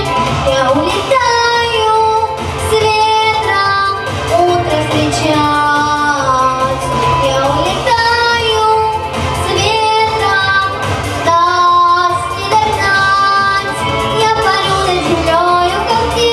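A girl singing a song in Russian over instrumental accompaniment, holding and sliding between notes over a steady bass line.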